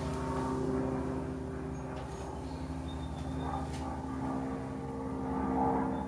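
Steady low mechanical hum made of several fixed tones, with a couple of faint taps.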